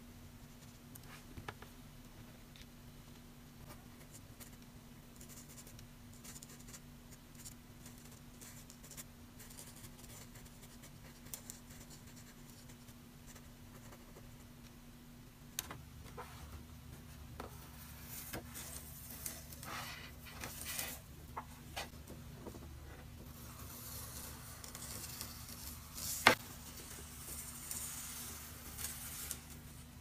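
Fine felt-tip pen strokes scratching faintly on watercolour paper. About halfway through, they give way to louder rustling and rubbing of the paper as masking tape is peeled from its edge, with one sharp click late on.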